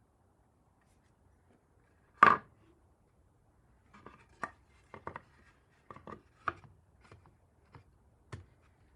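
One sharp, loud knock about two seconds in, followed by a run of lighter, irregular knocks and clicks.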